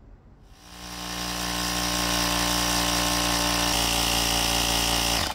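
Portable electric tyre inflator running, its small motor-driven air pump pumping up a car tyre to 35 psi. It starts about half a second in, builds up over a second to a steady running pitch, and cuts off abruptly near the end.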